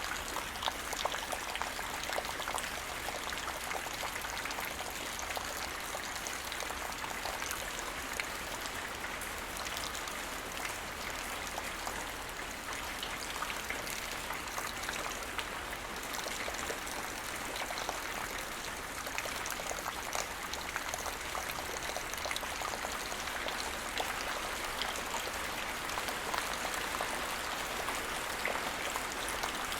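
Steady rainfall, with many small drops tapping and pattering on hard surfaces.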